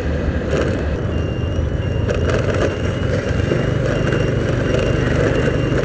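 Honda Activa 3G scooter riding at low road speed, its small engine running under a steady rush of wind and road noise on the mounted camera's microphone. A thin high-pitched tone comes and goes from about a second in.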